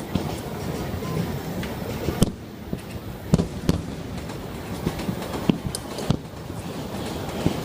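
Aerial fireworks shells bursting during a display finale: about six sharp bangs, some in quick pairs, over a continuous crackle.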